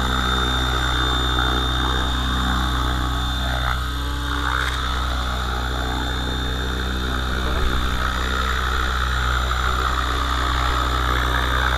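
Electric RC helicopter, an Align T-Rex 600 ESP driven by a Kontronik Pyro 600-09 motor, running steadily: an even drone of the spinning rotors with a thin high whine held on one pitch.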